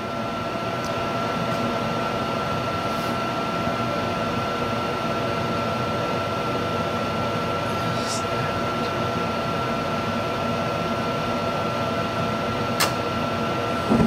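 Combustion air inducer of a 90% sealed-combustion gas furnace running steadily with a thin, high whine over its hum while the hot surface igniter heats. A sharp click near the end as the gas valve opens and the burners light.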